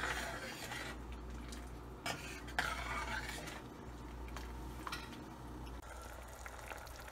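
Steel ladle stirring a thin tamarind gravy in a stainless steel pan, scraping and clinking against the metal, with a few sharper knocks of ladle on pan.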